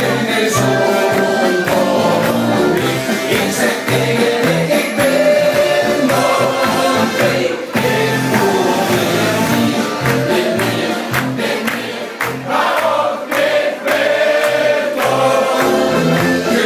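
Several men singing together into microphones over loud amplified music with a steady beat.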